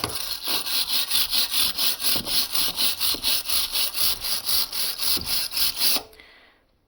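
A cheap hand tool scraping back and forth over a fresh stick weld to clean it, in quick, even strokes of about five a second. The scraping stops suddenly about six seconds in.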